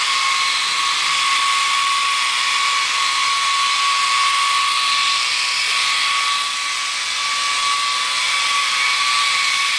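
Silverlit electric RC helicopter's small motors and rotors whirring in flight: a steady high whine over a hiss, dipping briefly about two-thirds of the way through.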